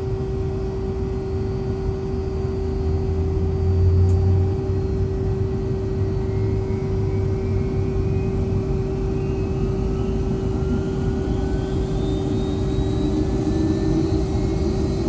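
Rolls-Royce RB211-535E4B jet engine of a Boeing 757-200 spooling up, heard from inside the cabin: a thin whine rises slowly in pitch from about six seconds in, over a steady cabin hum and low rumble.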